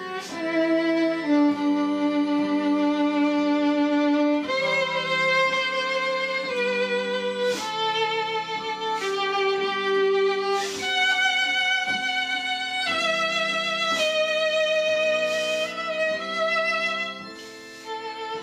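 Slow instrumental music led by a violin playing a melody in long held notes with vibrato, over a soft sustained accompaniment.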